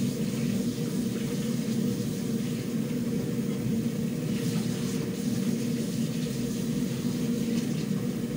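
A steady low mechanical hum that holds the same pitch and level without a break.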